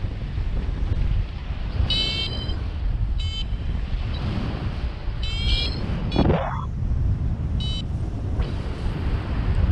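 Wind rushing over the microphone in paraglider flight, with four short bursts of high electronic beeping from a flight variometer, the chirping it gives in rising air. A brief rising whoosh about six seconds in.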